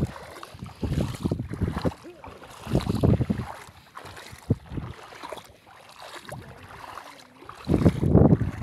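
Wind buffeting the phone's microphone in three low gusts, over a steady wash of shallow sea water on a tidal flat.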